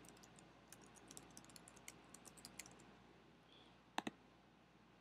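Faint typing on a computer keyboard, a quick run of keystrokes over about two and a half seconds, then a louder double click about four seconds in.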